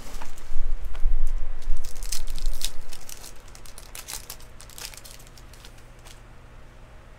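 Crinkly plastic wrapper of a baseball card pack being torn open and crumpled by hand: a dense run of crackling for the first three seconds, then a few fainter crinkles as the cards come out.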